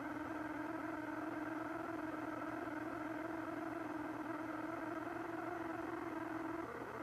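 An eerie, unexplained droning hum, one of the 'strange sounds' recordings: a single held pitch with overtones that shifts briefly near the end.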